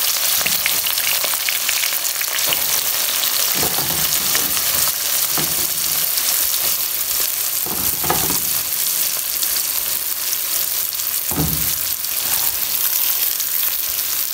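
Sliced onions sizzling loudly in hot cooking oil in a steel karahi: a steady frying hiss and crackle, broken by a few soft thumps as more onion slices drop into the pan.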